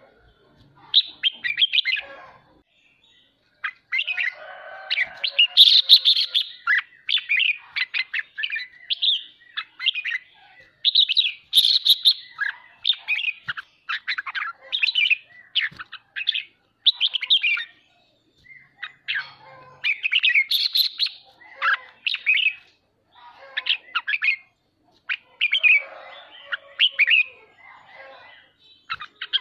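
Red-whiskered bulbul singing, a run of short, quick chattering phrases with brief pauses between them.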